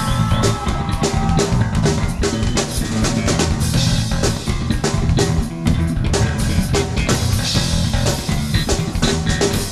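Live rock band playing, led by the drum kit: kick drum and snare keep a steady driving beat, with low bass notes underneath.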